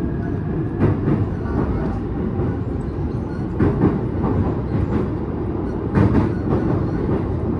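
Joban Line rapid electric train running at speed, heard from inside the car: a steady heavy rumble of wheels on rail, with a few sharper clacks as the wheels cross rail joints.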